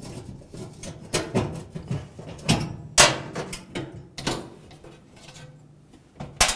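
Scattered metal clicks and knocks as the gas oven's burner tube and its mounting screw are handled and worked loose with fingers and a screwdriver, the sharpest knock about three seconds in and a quick double click near the end.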